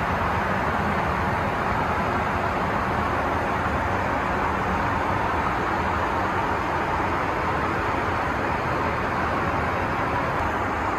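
Steady rumble and rush of an Airbus A380-800's engines and airflow, heard from inside the passenger cabin.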